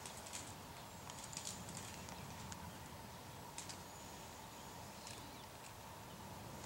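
Quiet woodland ambience: a faint steady hum and hiss, with short, sharp high-pitched chips and ticks scattered irregularly through it.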